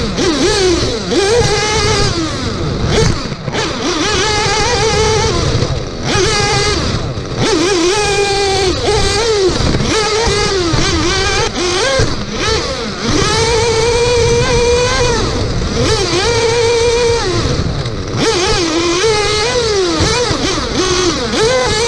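High-pitched whine of a Tekno NB48 2.0 1/8-scale nitro buggy's small two-stroke glow engine, revving up and dropping off again and again as the throttle is opened and closed, heard from a camera mounted on the car.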